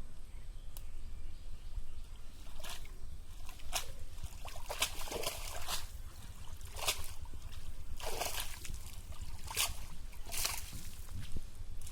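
Water splashing and sloshing in about ten short, irregular bursts over a steady low rumble.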